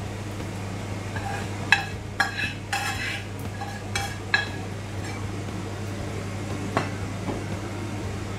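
Stir-fried vegetables tipped from a frying pan into a stainless steel pot of coconut sauce, with a cluster of knocks and scrapes of pan and utensil against the pot about two to four seconds in and one more later, then stirring with a silicone spatula. A steady low hum runs underneath.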